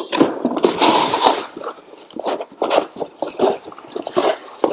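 Cardboard packaging being handled: a long scraping rustle as a cardboard insert is pushed and slid, then a run of short rustles and light knocks as hands rummage among parts packed in the box.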